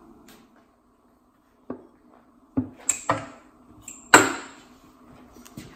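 Metal front cover of a 7.3L Godzilla Ford V8 being worked loose and pulled off the block. There is one knock, then a few sharp clanks about halfway through, and the loudest comes about four seconds in with a brief metallic ring.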